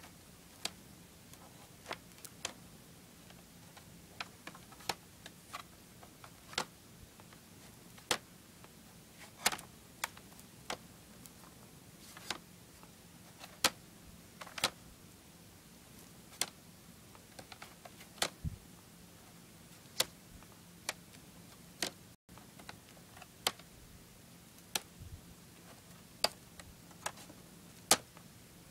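Plastic CED disc caddies clacking against one another as they are tipped forward one at a time: sharp, irregular clicks, about one every second.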